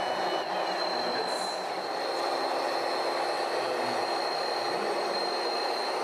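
RC model excavator's hydraulic pump whining steadily over a constant mechanical rumble, with a lower hum joining about two seconds in.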